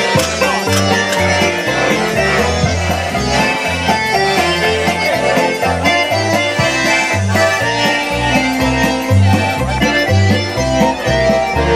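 Accordion-led music with a bass line stepping between notes and a steady beat.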